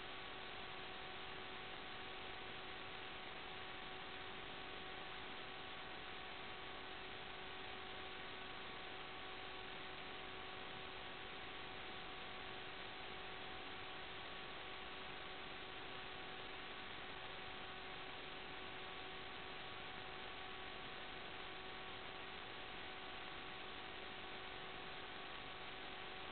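Steady static hiss with a few faint, unchanging hum tones and no other event: noise on the audio channel of an analog FPV video link, with no motor sound.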